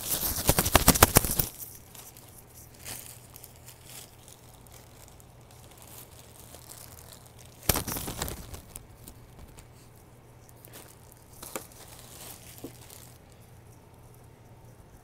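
Plastic bread bag crinkling as it is handled, loudest over the first second and a half and again in a shorter burst about eight seconds in, with a few fainter rustles between.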